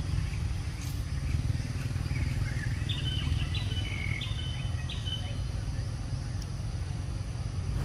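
Steady low outdoor rumble, with a bird chirping in a quick run of about four high notes starting about three seconds in.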